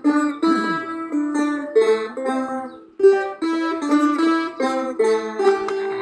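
Phin, the Isan plucked lute, playing a quick melody of plucked notes over a steady drone note, with a brief pause just before the middle.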